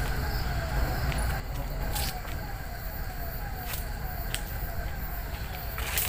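Footsteps crackling through dry undergrowth, with a short falling note repeating about twice a second in the background.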